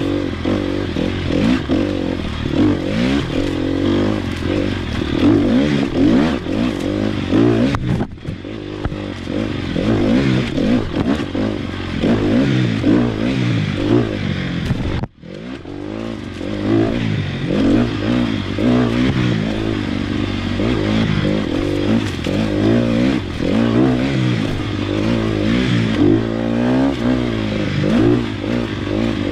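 Sherco SEF 300 Factory enduro motorcycle's four-stroke single-cylinder engine, its revs rising and falling constantly as it is ridden over rough trail. The sound drops suddenly and briefly about halfway through.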